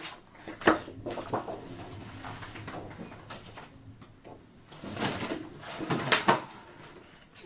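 Paper sheets and a paper pad being handled and sorted on a craft table: a sharp knock just under a second in, then rustling, and a cluster of knocks and rustles about five to six seconds in.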